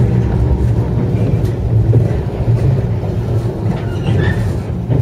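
JR West 103 series electric train standing still, its underfloor equipment giving a steady low hum.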